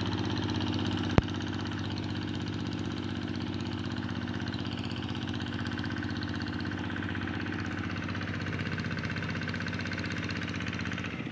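Tractor engine running steadily while ploughing a rice paddy, with one sharp click about a second in.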